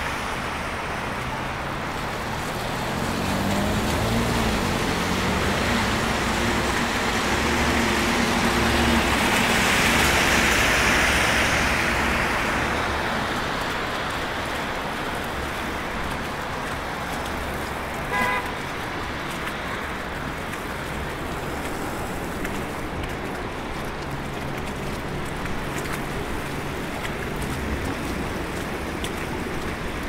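Cars driving on a slushy, snow-covered city street, tyre and engine noise swelling as a vehicle passes about ten seconds in. A short car horn beep sounds a little past the middle.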